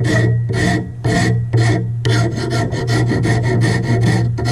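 Hand file rasping back and forth across a hickory axe handle, shaping the wood, over a steady low hum. The strokes come about two a second at first, then quicker, five or six a second, from about halfway.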